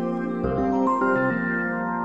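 Background instrumental music: soft held notes without a bass beat, with new notes coming in about half a second in and again about a second in.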